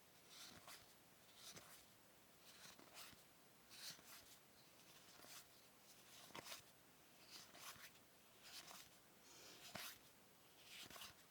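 Faint, soft swishes and ticks of trading cards being flipped through one at a time, irregularly, about one or two a second.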